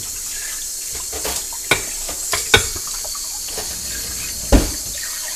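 Kitchen tap running into a stainless steel sink while dishes are rinsed, with a few sharp clinks and knocks of bowls and a pot, the loudest about two and a half and four and a half seconds in.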